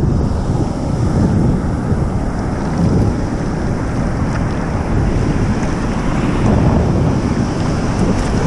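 Wind buffeting an action camera's microphone: a steady, loud low rumble with no clear tones.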